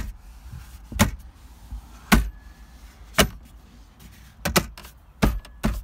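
Lid of a new replacement dashboard storage console in a 2016 Ford Edge being pushed shut and popped open again and again, its push-button latch catching and releasing: about seven sharp plastic clicks, roughly one a second, coming closer together near the end. The latch is working.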